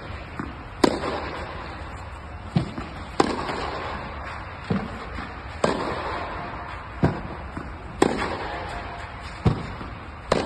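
Tennis balls struck back and forth in a rally: five sharp racket hits, about every two and a half seconds, each ringing out in a long echo inside the enclosed dome, with softer, duller knocks falling between them.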